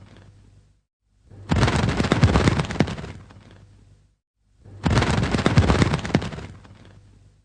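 Bird wings flapping in two flurries of rapid beats. The first starts about a second in and the second about four and a half seconds in; each starts abruptly and dies away over a second or so.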